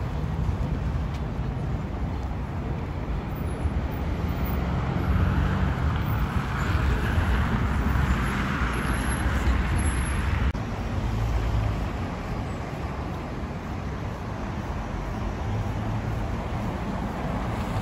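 City road traffic: cars driving past on a wide street, a steady rumble of engines and tyres. A louder passing swell builds from about four seconds in and cuts off suddenly about ten seconds in, after which the traffic noise goes on more evenly.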